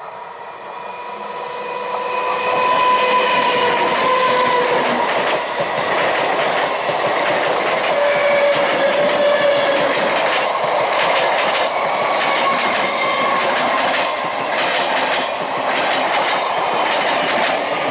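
A passenger train passing close by on a rail bridge, its wheels clattering over the rail joints. The sound swells over the first few seconds and then stays loud, with long steady high tones in the first five seconds and a quick run of clicks in the second half.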